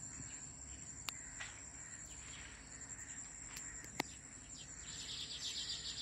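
Faint field ambience: crickets trilling in one steady high-pitched tone, with a couple of sharp clicks. A bird's rapid chattering call comes in about five seconds in.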